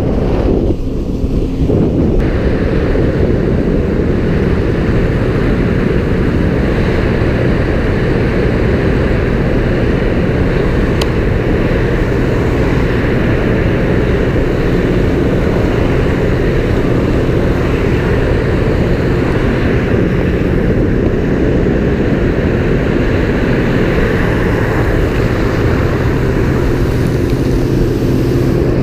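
Speed boat's engine running steadily at speed, with water rushing past the hull and wind buffeting the microphone.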